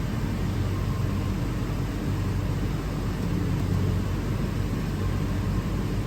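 Steady machine hum with an even rushing, whirring noise and a low drone that does not change.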